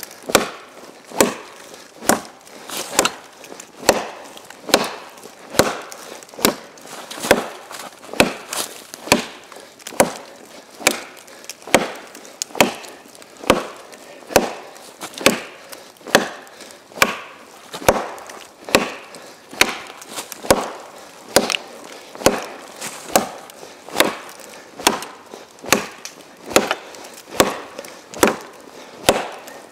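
Small parang blade chopping into a frozen ash log of about 10 cm, steady strokes about one a second, each a sharp woody chop.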